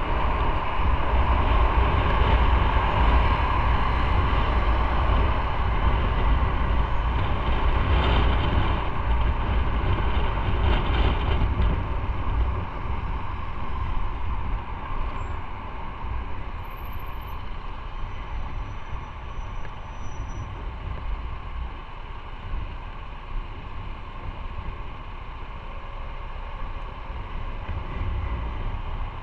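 Motorcycle riding noise: engine and a deep wind rumble on the microphone while moving in city traffic. It drops noticeably quieter about halfway through as the bike slows behind queued cars.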